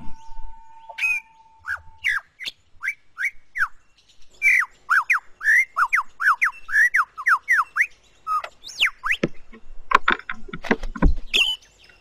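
Male superb lyrebird singing his courtship display song: a long series of loud, clear whistled notes, most sweeping down in pitch, coming thick and fast from about four seconds in. The song is built from mimicry of other forest birds' calls.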